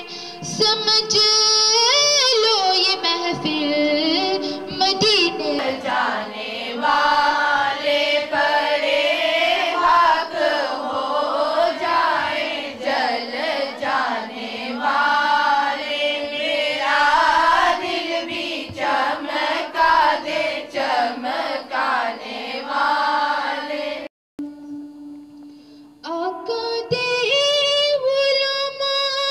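Women's voices singing a naat, an Urdu devotional song in praise of the Prophet, in a melismatic style with long sliding notes. About three-quarters of the way through the singing cuts out for a moment, a single low held note fades, and the singing resumes.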